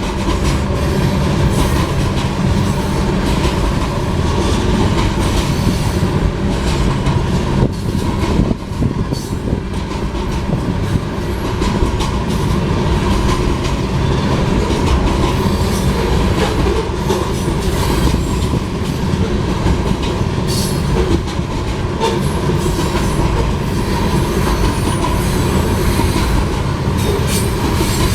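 Loaded grain train rolling steadily past a grade crossing: continuous rumble and clatter of the cars' wheels on the rails, with a steady high squeal from the wheels and scattered clicks over the joints.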